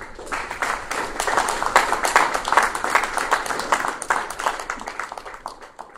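Audience applauding: dense clapping that starts at once, is strongest in the first few seconds and fades away near the end.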